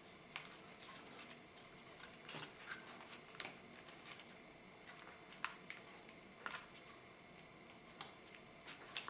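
Faint, irregular small clicks and taps of fingers working tiny antenna-cable snap connectors onto a laptop's wireless card, with a few sharper clicks scattered through.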